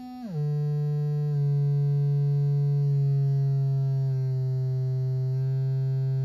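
Oscillator of a Music Thing Workshop System modular synthesizer sounding one steady tone; within the first half second it glides down about an octave as its tuning knob is turned, then holds near C3 while it is being tuned in.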